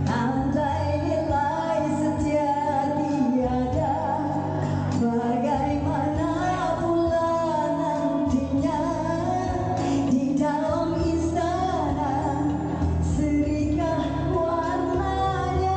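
A woman singing a song live into a handheld microphone over instrumental backing music, amplified through PA speakers in a large, echoing hall.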